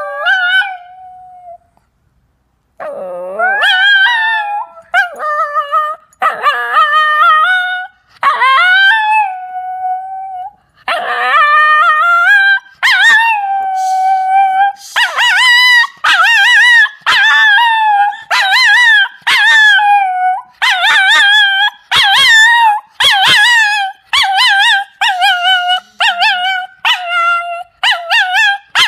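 A small long-haired dog howling: long wavering howls at first, then one long held howl, then a quick string of short howls, one or two a second, to the end.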